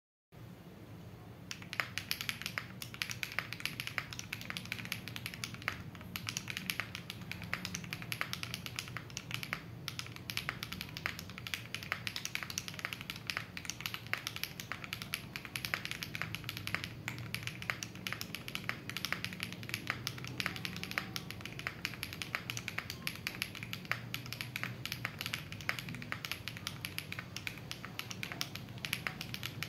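Continuous fast typing on a Weikav Sugar65 gasket-mount mechanical keyboard with an FR4 plate, Sillyworks Hyacinth V2U linear switches and doubleshot ABS keycaps: a dense stream of keystroke clacks that starts about a second and a half in.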